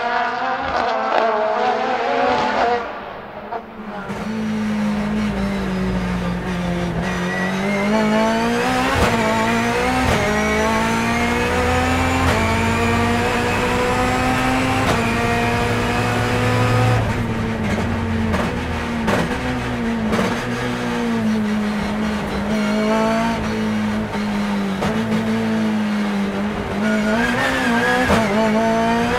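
Turbocharged BMW S14B20 2.0-litre four-cylinder in a time-attack race car under hard acceleration. It is heard passing the trackside camera at first, then from inside the cockpit. The engine note climbs and drops repeatedly through gear changes and corners on the sequential gearbox.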